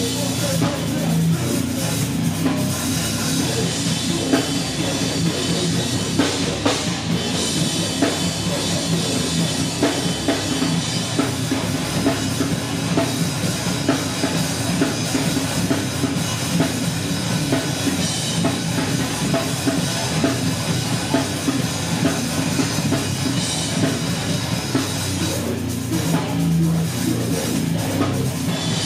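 Loud heavy rock band playing live, with a pounding drum kit driving a dense, unbroken wall of amplified sound.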